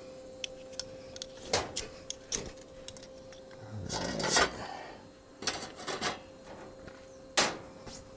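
Cooking gear being handled: a string of separate clicks and knocks, with a few louder clanks, over a faint steady tone.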